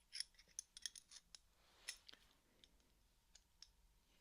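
Faint, irregular light clicks and ticks of an open-end wrench (spanner) handled close to the microphone. Most of them come in the first two seconds, then only a few.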